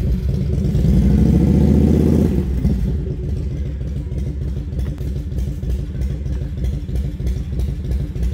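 An engine revving, rising in pitch over the first two seconds, then running at a steady low rumble.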